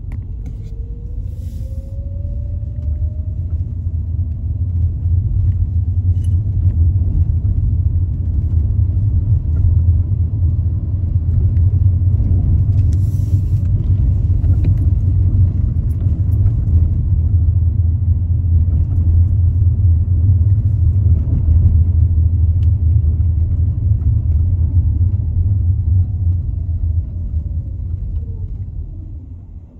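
Car driving on city streets: a loud, steady low rumble of tyres and engine that builds over the first few seconds and drops away near the end. A faint whine rises in pitch early on and falls again toward the end.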